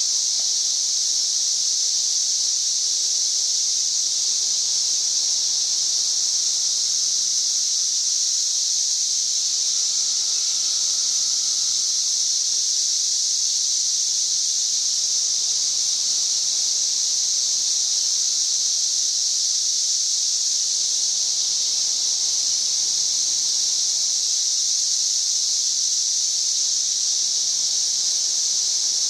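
A loud chorus of cicadas: a steady, high-pitched, unbroken drone of many insects singing together, said to reach about 90 decibels.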